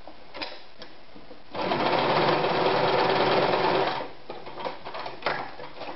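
Anker 220 Super Stretch sewing machine running for about two and a half seconds, stitching a seam through several folded layers of dense, card-like roller-blind fabric. A few light clicks come just before it starts and after it stops.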